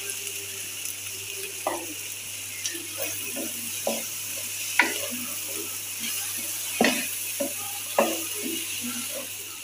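Wooden spatula stir-frying shredded cabbage, scrambled egg and vegetables in a hot wok: a steady sizzle with irregular scrapes and knocks of the spatula against the pan.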